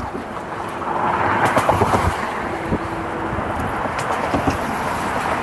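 Road traffic going by on the multi-lane road alongside, a steady rushing that swells between about one and two and a half seconds in.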